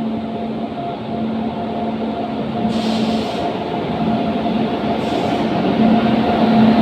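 Goods train locomotive running with a steady hum, growing gradually louder, with two brief hissy bursts about three and five seconds in.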